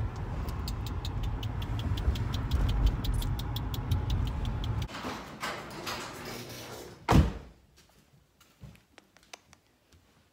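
Car running with a low rumble and a rapid, even ticking over it. The rumble stops about five seconds in, and a car door is slammed shut about seven seconds in.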